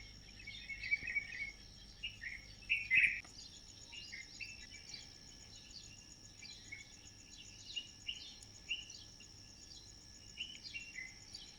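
Birds chirping and calling, with many short, quick notes scattered throughout and a louder call about three seconds in. A steady high-pitched trill runs underneath.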